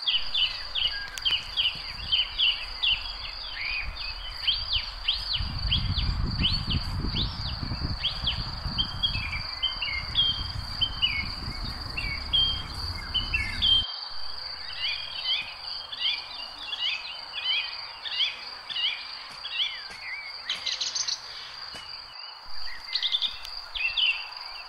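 Many birds chirping and calling over a steady high-pitched insect drone. A low rumble sits underneath for the first half and stops abruptly about halfway through.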